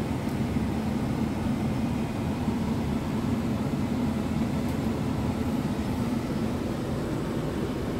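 Scania R tractor unit's diesel engine idling steadily, a low even drone heard from inside the stationary cab.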